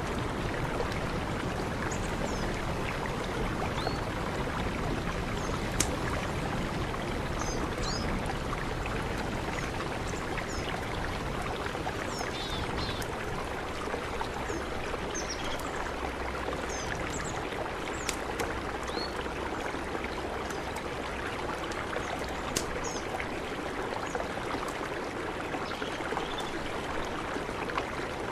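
Mountain river rushing steadily, with short high chirps scattered over the water noise and a few sharp clicks.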